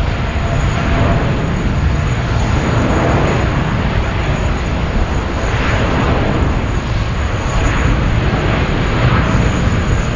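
Boeing 787 Dreamliner's jet engines at takeoff thrust during its takeoff roll: a loud, steady jet roar, heaviest in the low end, with a thin high whine above it.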